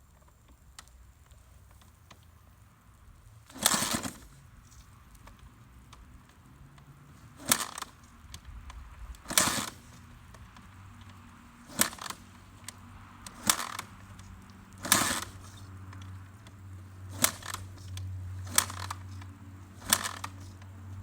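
A carbureted Suzuki RM-Z450 four-stroke being kick-started: about nine hard kicks, one every second or two, each a sharp clunk as the engine turns over. It does not catch, typical of a carburetor still jetted for a different elevation.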